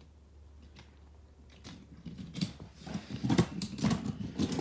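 Toy monster trucks clattering and knocking against each other as a hand rummages through a pile of them: a quick run of clicks and rattles that starts about two seconds in.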